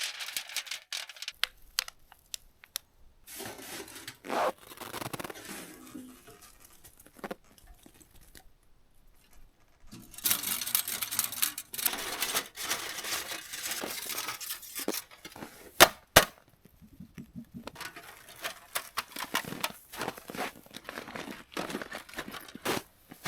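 Camping gear and plastic packaging being handled: irregular rustling, crinkling and tearing, with scattered clicks and knocks and a sharp double knock about two-thirds of the way through.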